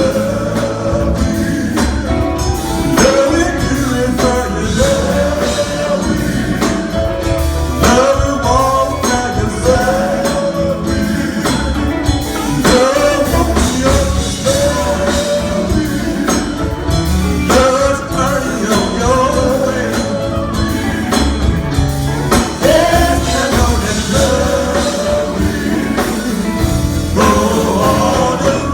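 Gospel group singing with band accompaniment: sung melody lines over a steady beat and bass.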